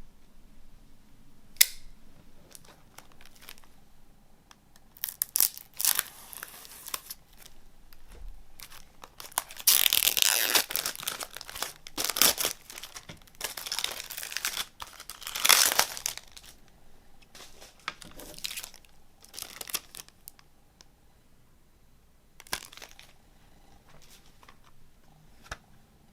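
Plastic shrink-wrap on a new CD case being torn open and crumpled in several crackly bursts, loudest about ten and fifteen seconds in, with scattered sharp clicks as the case is handled.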